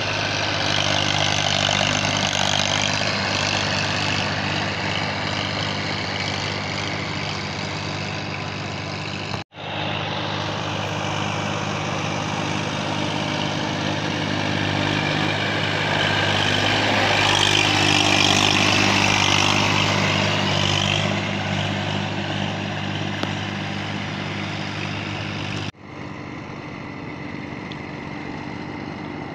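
Small farm tractor's diesel engine running steadily as it works through a muddy paddy field on steel cage wheels. The sound breaks off abruptly twice, about a third of the way in and near the end, and the last stretch is quieter.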